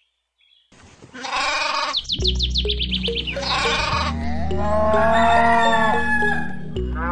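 Goat bleats: one starts about a second in, breaks into a rapid stuttering tremble, and is followed by a second, shorter bleat. Then comes one long drawn-out animal call. All of it sits over background music with a steady low drone and a regular light beat.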